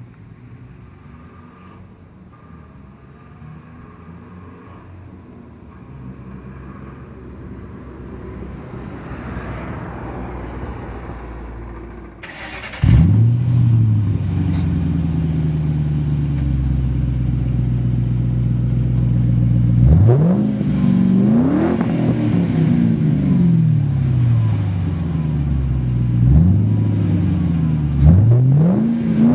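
2005 Ford Mustang GT's 4.6-litre V8 running through a Magnaflow cat-back exhaust with race mufflers. It hums low at first, then about 13 seconds in it suddenly gets louder with a quick rise in pitch and settles into a steady idle. In the last ten seconds there are several quick throttle blips, each rising and falling in pitch.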